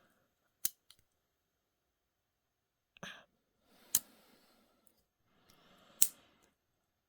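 Swiss Army-style pocket knife being handled: light clicks, then two sharp snaps about two seconds apart, each amid a second of rustling, typical of its tools being worked and snapping into place.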